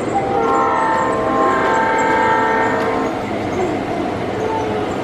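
Sound-equipped large-scale model diesel locomotive blowing its multi-tone horn in one long blast of about three seconds, followed by the steady running noise of the trains on the layout.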